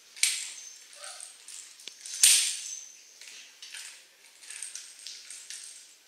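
Hard plastic toy balls on a ring clacking and rattling against a tile floor as a puppy mouths and shoves the toy: several sharp clatters, the loudest about two seconds in.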